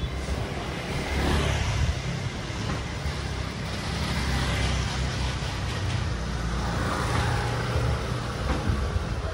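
Motor scooters passing close by on a wet street: small engines running, with the hiss of tyres on wet pavement, swelling about a second in and again near the end.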